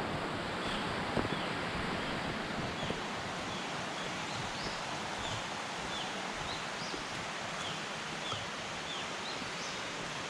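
Gorge stream flowing steadily, with short high chirps repeating about once a second over it.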